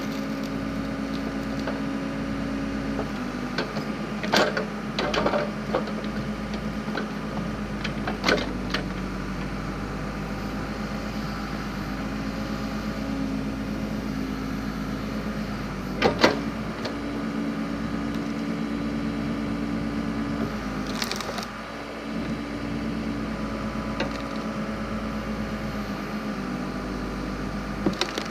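Backhoe engine running steadily, its pitch stepping up and down as the hydraulics take and release load, while the backhoe-mounted log splitter works through firewood. Several sharp cracks of wood splitting, the loudest about sixteen seconds in.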